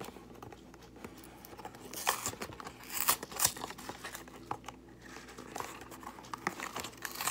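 Cardboard trading-card hanger box being pried and torn open by hand: scattered crinkling and tearing in short bursts. The box is hard to get into.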